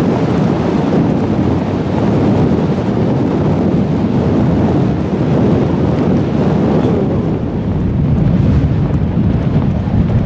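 Steady, loud wind buffeting on the microphone, mixed with the low rumble of a vehicle driving along a dirt track.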